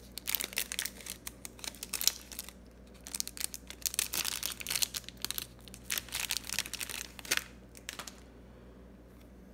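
Clear plastic wrapper of a baseball card pack crinkling and tearing as it is ripped open and peeled off the stack of cards, in a run of crackly bursts that stops about eight seconds in.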